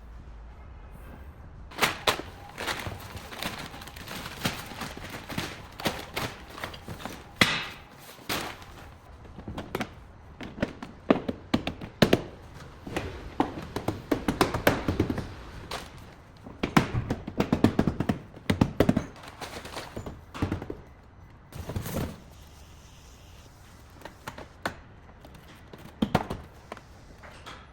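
Irregular knocks, taps and thunks of hand work on a car body, some of them loud and several followed by a short ring, with a few quieter gaps between clusters.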